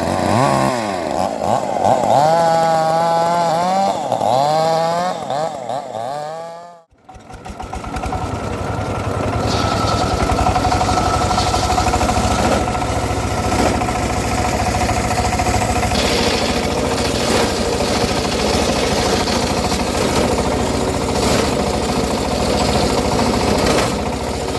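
Chainsaw engine running, its pitch rising and falling as it revs. About seven seconds in it cuts off, and then a steady engine drone takes over.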